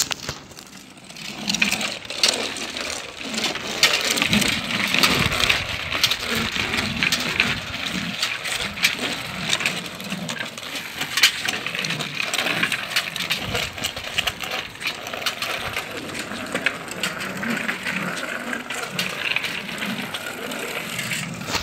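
Child's bicycle with plastic training wheels rolling over concrete tiles, rattling with many irregular clicks and knocks.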